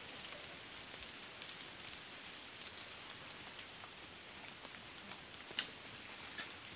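Light rain in the forest: a faint, steady hiss with scattered ticks of drops, and one sharper tick about five and a half seconds in.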